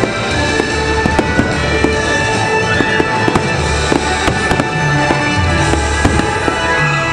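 A fireworks display going off: many sharp bangs and crackles one after another, over loud music played for the show.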